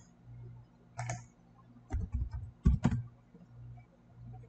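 Computer keyboard keystrokes and mouse clicks. A few scattered clicks come first, then a cluster of louder, duller knocks about two to three seconds in.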